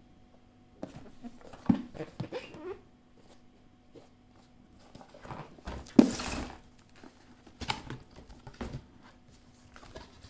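Packaging being handled during an unboxing: irregular knocks and rustling, with a sharp knock a couple of seconds in and a loud rustle that starts sharply about six seconds in, over a faint steady hum.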